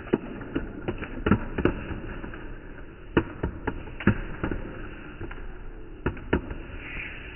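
A series of irregular knocks and taps, unevenly spaced at a few a second, over a steady background hiss.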